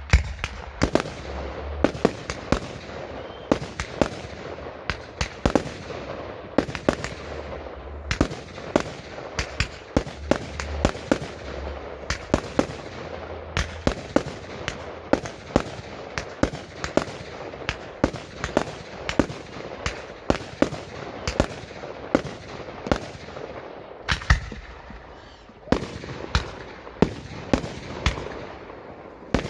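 Fireworks display: a dense string of sharp bangs from mortar-fired shells bursting, several a second, over continuous crackling, with a brief lull about three-quarters of the way through.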